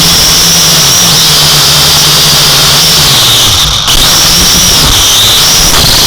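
Drone's electric motors and propellers whining, the pitch stepping and gliding up and down as the throttle changes, with a brief dip in level about four seconds in.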